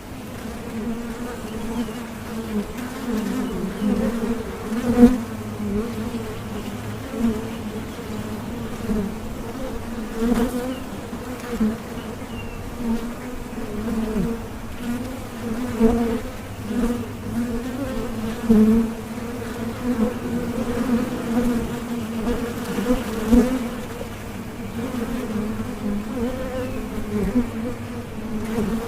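Bees buzzing together: a steady wavering low hum with a higher overtone above it, swelling briefly now and then.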